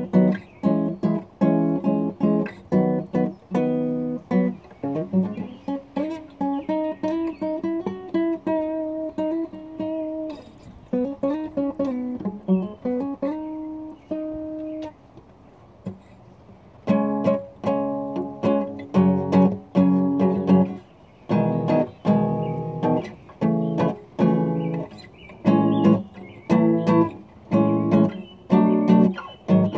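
Acoustic guitar being strummed in rhythm. Partway through it plays a slower run of held notes that bend in pitch, stops for about two seconds, then goes back to steady chord strumming.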